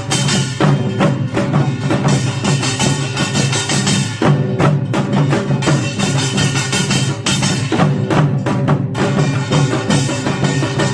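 Pungmul percussion ensemble playing a dense, driving rhythm of struck drums and gongs.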